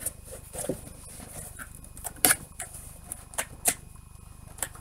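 Cardboard box being folded shut and handled: a few scattered knocks and scrapes, the loudest about two seconds in.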